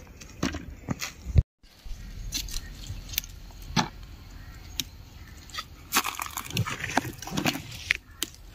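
Small round chili peppers being picked by hand: stems snapping off, leaves rustling and peppers dropping into a woven bamboo basket, heard as scattered short clicks and snaps. The sound cuts out completely for a moment about a second and a half in.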